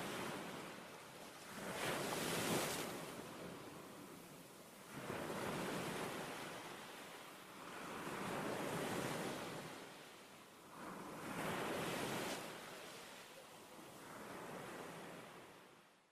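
Sea waves washing in, each one swelling and falling away every three or four seconds, fading out at the end.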